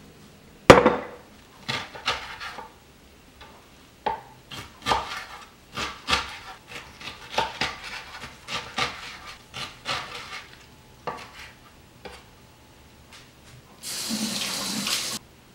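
A sharp knock about a second in as the glass jar is set down, then a knife slicing kimchi on a wooden cutting board in a series of irregular strokes. Near the end a kitchen tap runs for about a second.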